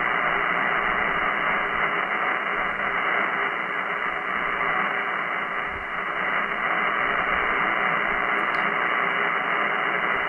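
Power line noise received on the 20 meter band and played through a Yaesu FTDX101 HF transceiver's speaker: a steady, raspy hash with no highs above about 3 kHz. It dips slightly about halfway through and comes back up as the noise canceller's gain is adjusted.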